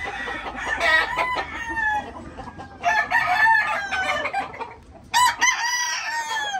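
Several gamecocks crowing, in three long bouts with only short breaks between them, the crows overlapping one another.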